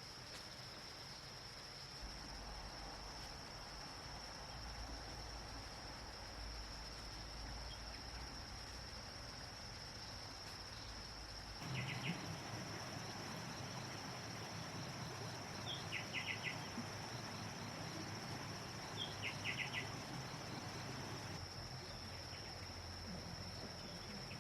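Insects trilling, one steady high-pitched drone, with three brief clusters of rapid chirps near the middle and later on.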